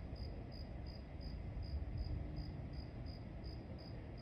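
A cricket chirping steadily, about three short high chirps a second, faint over a low background rumble.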